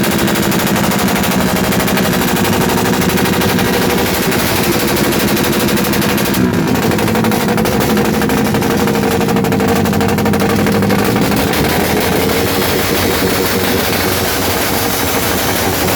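Modified Suzuki Raider motorcycle engine revved hard through a loud aftermarket exhaust, a fast rattling run of firing pulses. The revs dip and climb again about six and a half seconds in.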